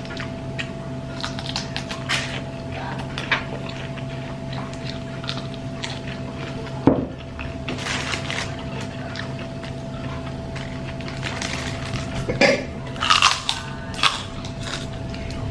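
A person eating: chewing and crunching with scattered small clicks, and sharper knocks about seven and twelve seconds in, over a steady hum.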